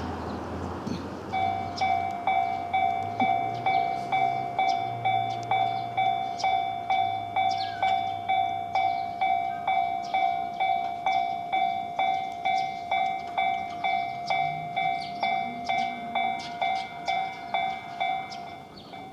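Japanese railway level-crossing electronic warning bell starting about a second in and ringing steadily about twice a second: the signal that a train is approaching and the barriers are down.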